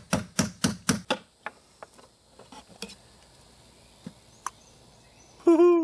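Hammer striking a screwdriver in quick blows, about four a second, to drive it under a fitting on a fiberglass boat's transom and pry the fitting loose. Fainter, scattered taps follow, and a short, loud pitched sound comes near the end.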